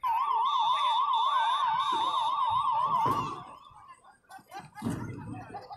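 A loud siren-like warbling tone, wavering up and down about five times a second around one pitch, starts suddenly and stops a little over three seconds in.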